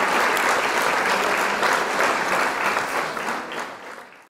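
Applause, a dense patter of many hands clapping, fading out over the last second.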